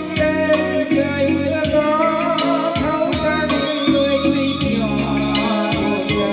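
Song with a singing voice and a steady beat of drum and shaker percussion, played loud over loudspeakers that are being demonstrated.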